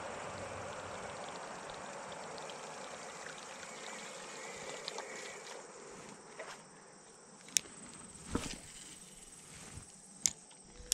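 Spinning reel cranking in a topwater lure with a steady whir that fades out about six seconds in, followed by a few sharp clicks and a dull knock as the retrieve ends.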